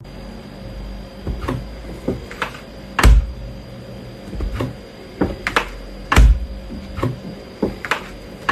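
A series of irregular knocks and taps, about ten in all, two of them heavy thumps with a deep boom about three seconds in and again about six seconds in.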